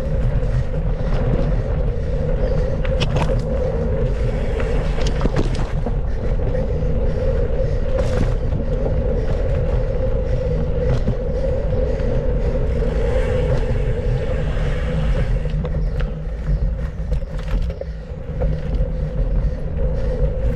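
Rumble and wind noise from a mountain bike ridden over a dirt trail, with a steady mid-pitched hum and scattered rattles and knocks.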